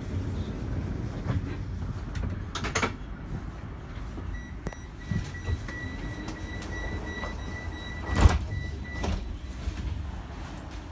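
Tram running, heard from inside the passenger compartment: a steady low rumble with sharp knocks about three seconds in and, loudest, about eight seconds in. A steady high whistle sounds for about four seconds in the middle.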